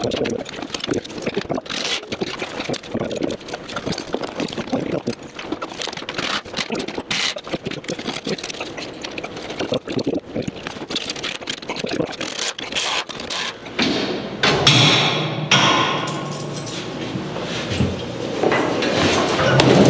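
Irregular metal clanks, knocks and scrapes of hand-tool work while a truck's exhaust pipe is being bolted up. About fourteen seconds in, a steady mechanical hum with a hiss comes in.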